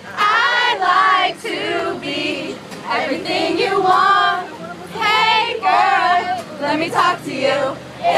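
Male pop singer singing live to a steel-string acoustic guitar, with several other voices singing along.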